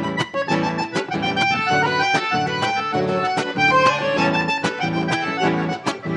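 Piano accordion playing an instrumental melody, with an acoustic guitar strumming a steady rhythm underneath: the break between verses of a gaúcho song.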